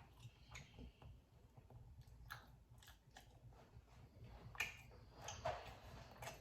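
Faint close-up chewing of a crispy, air-fried birria taco, with a few sharp crunches scattered through the chewing.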